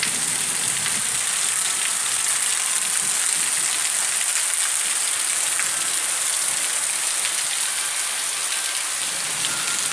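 Steady rain falling, an even, unbroken hiss that stays at the same level throughout.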